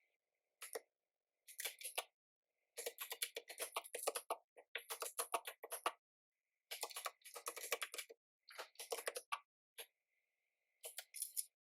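Typing on a Megakeys mechanical typewriter-style keyboard: rapid runs of key clicks in several bursts with short pauses between them.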